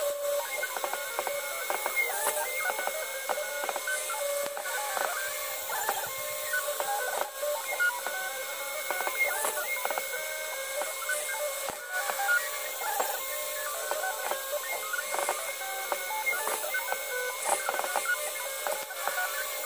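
CNC-converted Precision Matthews PM-25MV mill carving wood with a small end mill: steady motor whine from the spindle and axis drives, with tones that break off and change pitch every second or two as the cutter changes direction.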